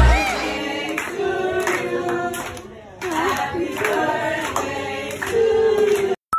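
A group of people singing a birthday song together, with hands clapping along. The singing cuts off abruptly near the end.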